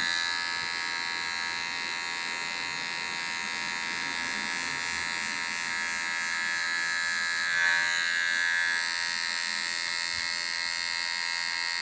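Electric hair clipper (M-Pro) running with a steady buzz and whine as its blade, taper lever fully up, is passed through short hair on the side of a fade. It swells slightly for a moment about eight seconds in.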